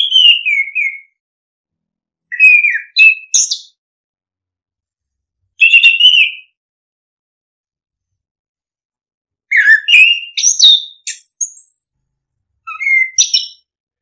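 A Geokichla ground thrush singing in short whistled phrases, five in all, each about a second long with silent gaps of one to three seconds between. The phrases mix clear fluty notes with quick higher notes that rise and fall.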